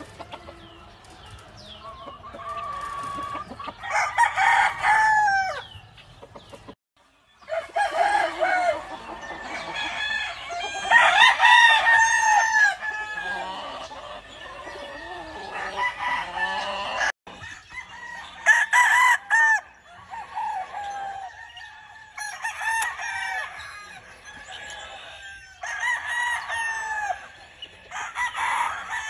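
Roosters crowing over and over, several birds overlapping, with hens clucking between the crows.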